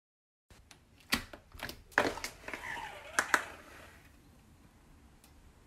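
A run of sharp clicks and knocks with some rustling between them, the loudest about a second in, twice near two seconds in and twice just after three seconds in; after that only a faint background hiss.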